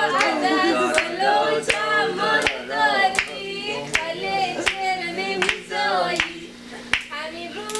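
Voices singing a song with hand claps keeping a steady beat, a little more than one clap a second; the singing dips near the end.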